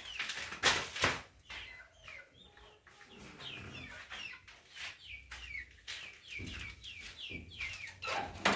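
Chickens calling, many short falling calls in quick succession, with a few sharp knocks near the start and again near the end.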